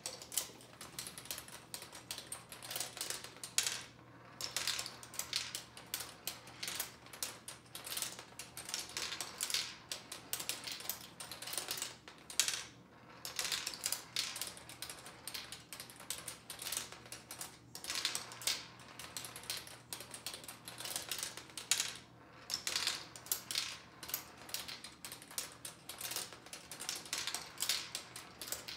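Turing Tumble marble-powered computer running a subtraction: small marbles roll down the board and clatter through its plastic ramps, bits and crossovers. The result is a steady stream of quick, irregular clicks.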